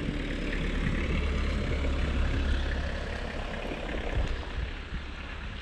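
A large vehicle's engine rumbling close by, a deep steady drone that swells to its loudest about two seconds in and then fades toward the end.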